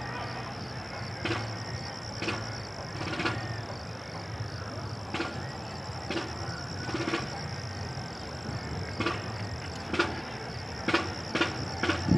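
Distant parade drums beating about once a second, sharp hits with a low thud, over a steady background hum.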